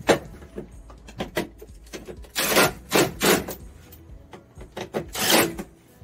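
Seat belt hardware being handled and fitted to the body: a sharp click, scattered small clicks, and three short scraping rubs a couple of seconds in and near the end.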